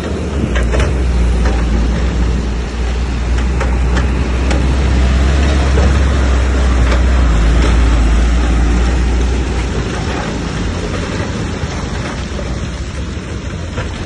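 Bulldozer's diesel engine working hard with a deep, steady rumble and occasional clanks. The engine note eases off about two-thirds of the way through.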